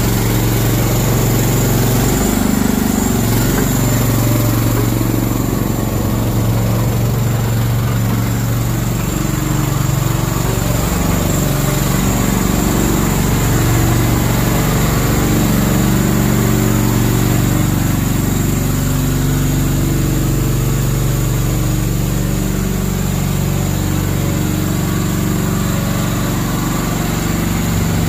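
Small petrol engine of a Slanetrac HT1000 tracked mini dumper running steadily as the machine is driven along.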